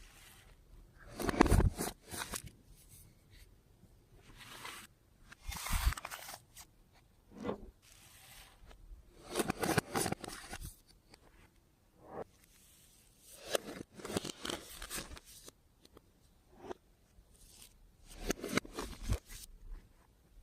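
Clear slime being worked by hand with makeup mixed into it: irregular bursts of sticky crackling and squelching every second or two.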